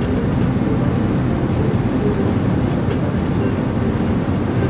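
Steady, low road and engine noise inside the cabin of a car driving along a freeway.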